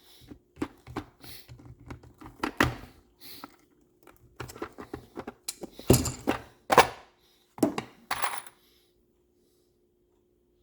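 Steel deck screws clinking and rattling against each other as they are handled: a string of sharp metallic clicks and clatters that stops about three-quarters of the way through.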